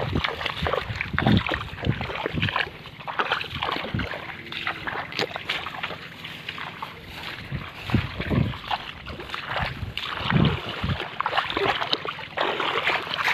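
Irregular footsteps squelching and splashing through wet mud and shallow water, with wind buffeting the microphone.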